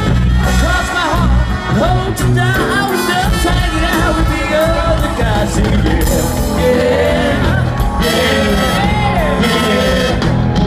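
Live rock band playing a song with lead vocals over bass and drums, recorded from the audience.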